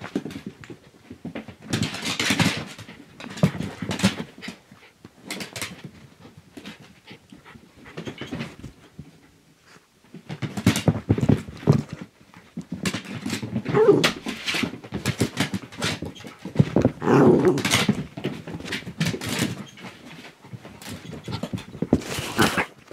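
Small dogs playing rough as they chase a laser pointer dot on a shaggy rug: scrabbling paws, bodies scuffling and knocking close by, and dog breathing and snuffling, in irregular bursts with short lulls.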